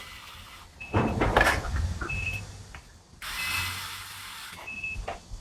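RC excavator's low-battery alarm beeping: short high beeps about every 1.3 s, warning that the battery is flat. Between the beeps its electric lead-screw drive whirs, with loud clunks of the arm or bucket about a second in.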